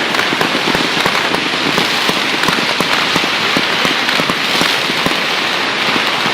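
Dense, continuous crackling of many firecrackers and fireworks going off all around, a steady hiss of tiny pops with sharper bangs scattered through it.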